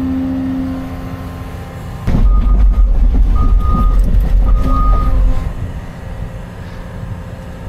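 CAT 335 excavator's diesel engine and hydraulics heard from inside the cab: a steady run that rises to a heavy, louder rumble with some clatter about two seconds in, as the machine works under load, then eases back after about three seconds. A few short high beeps sound during the loud stretch.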